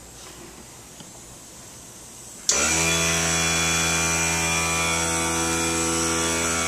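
A motor starts abruptly about two and a half seconds in and runs at a steady pitch, a loud low hum with a high whine over it. Before that there are a few light clicks.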